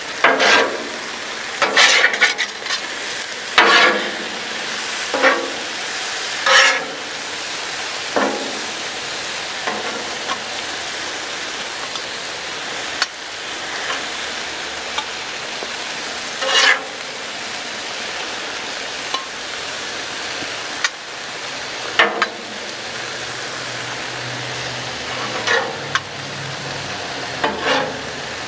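Chicken strips sizzling on a hot steel Blackstone flat-top griddle while two metal spatulas scrape under them and toss them. About a dozen short scrapes come at irregular intervals over the steady sizzle.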